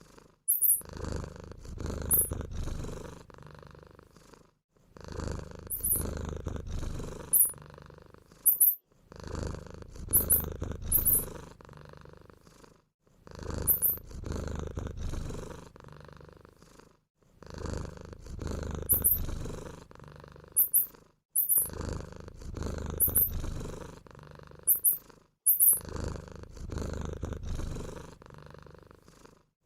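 Cat purring, a low rumble in repeated clips of a few seconds each, separated by brief gaps. Short, very high-pitched squeaks, often in pairs, are dotted through.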